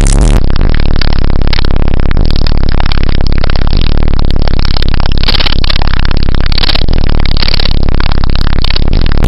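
Bass-heavy music played very loud through a car audio system with three 15-inch DB Drive Okur K715D4 subwoofers, the deep bass steady and nearly saturating the recording.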